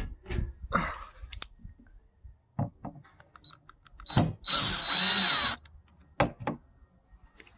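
Cordless drill/driver running a screw into the RV door lock: a short blip, then a run of about a second with a high motor whine, amid scattered clicks and knocks of handling the lock parts.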